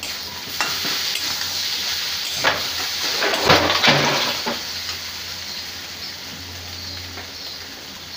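Chopped taro leaves frying in oil in a kadai: a steady sizzle, with a few stirring scrapes and knocks against the pan, most of them around the middle.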